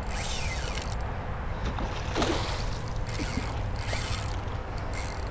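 A hooked fish splashing at the water's surface beside a kayak, with creaks and clicks from the spinning reel and kayak over a steady low rumble.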